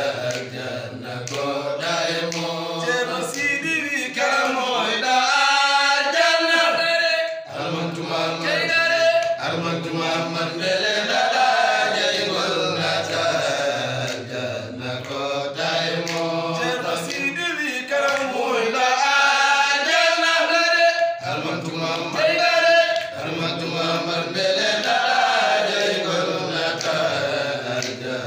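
Men's voices chanting a devotional song: a lead voice sings phrases that rise and fall, with others singing along.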